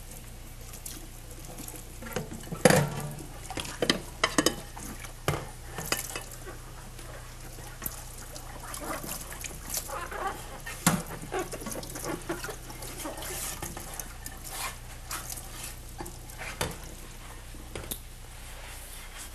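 Dishes, cups and cutlery clinking and knocking as they are handled at a kitchen counter, in scattered irregular strikes with a louder knock near the start, over a low steady hum.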